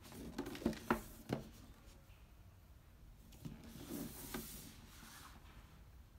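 Cardboard box being handled and turned over on a tabletop: three light knocks in the first second and a half, then the box sliding and rubbing against hands and table around four seconds in.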